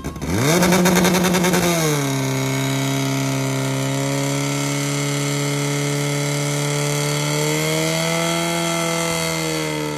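Portable fire pump's engine revving up sharply as the throttle is opened, then easing back slightly after about two seconds and running at high, steady speed, with a slight swell in pitch near the end. The pump is driving water through the hoses to the nozzles.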